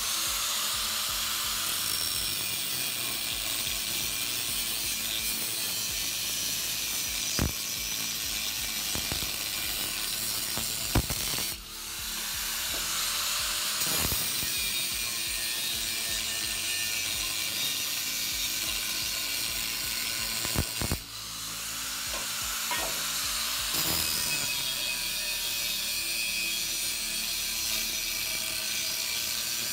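4.5-inch angle grinder with an abrasive cutoff wheel cutting through square steel tubing: a steady, harsh grinding hiss that briefly drops off and comes back twice, about a third and two-thirds of the way through.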